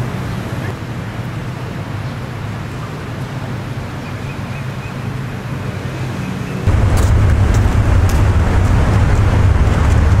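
Steady outdoor background rumble with no clear events, jumping louder and deeper about two-thirds of the way through.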